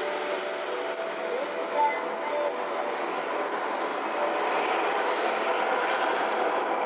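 Steady road and tyre noise of a moving car heard from inside the cabin, with a faint radio or music underneath.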